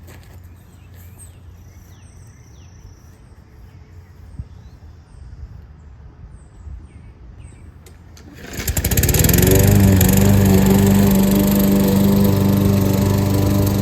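Lawn mower engine starting up about two-thirds of the way in, coming up to speed within a second and then running steadily and loudly.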